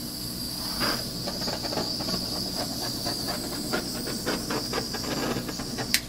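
Small handheld torch hissing steadily with many small crackles as its flame is passed over wet acrylic paint to pop air bubbles. The hiss cuts off near the end.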